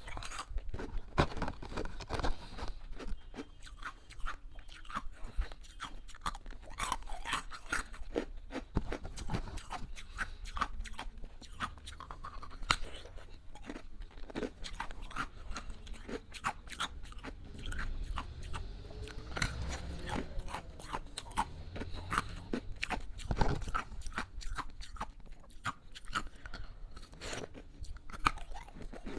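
Close-up crunching and chewing of hard ice cubes in the mouth: many sharp, irregular cracks as the ice breaks between the teeth.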